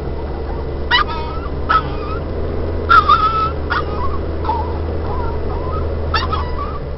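Chihuahua whining and yipping with excitement: about five sharp, high cries, the loudest about three seconds in, over a steady low rumble from the moving car.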